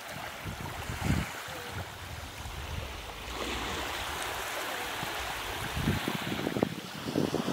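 Sea waves washing on a beach, with wind on the microphone and a few low thumps about a second in and again near the end.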